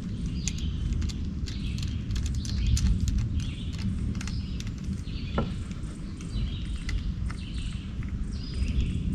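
Birds chirping over and over, over a steady low rumbling noise.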